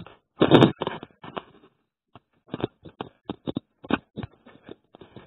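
A short burst of rustling, then a run of irregular soft knocks and rustles: handling noise from a handheld camera being moved around.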